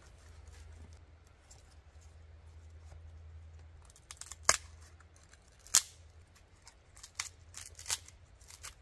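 Dry split firewood being torn and snapped apart by hand into kindling. There is a handful of sharp cracks and splintering snaps from about halfway in, the two loudest close together near the middle.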